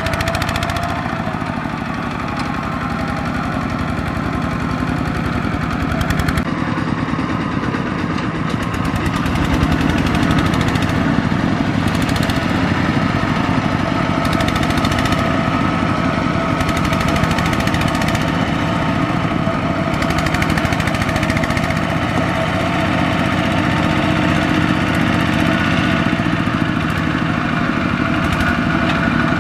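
Single-cylinder diesel engine of a Kubota RT120 two-wheel walking tractor running hard under load as it hauls a cart of rice sacks, a fast steady chugging throughout. The sound shifts abruptly about six seconds in.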